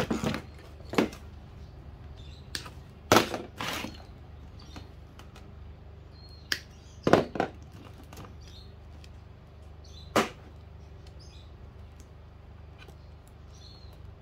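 Tangled electrical cables with plastic plugs and power adapters being pulled apart and shifted about on a metal-topped workbench: irregular clacks and knocks, with a few sharper ones in the first four seconds and around seven and ten seconds in.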